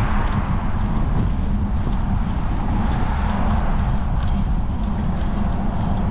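Wind rushing and buffeting over the microphone of a moving action camera during a ride, a loud steady low rumble, with road and traffic noise swelling and fading.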